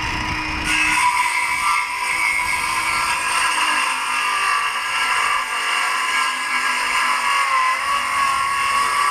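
Electric power tool motor running with a steady high whine, its pitch dipping slightly near the end.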